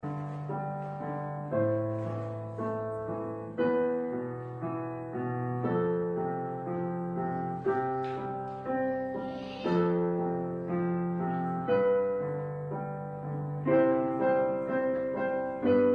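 Solo piano music: chords struck about once a second, each ringing and fading before the next.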